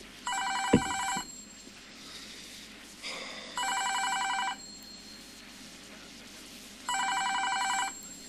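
A telephone ringing with a fast warbling trill, three rings of about a second each, a few seconds apart: an incoming call on the radio station's phone line. A sharp click sounds during the first ring.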